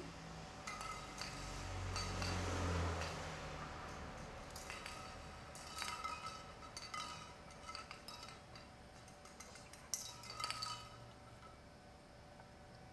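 A crow pecking at and pushing a small glass bottle on asphalt: sharp glassy clinks of beak and bottle against the pavement, in clusters about five to seven seconds in and again at about ten seconds. A low rumble swells and fades in the first few seconds.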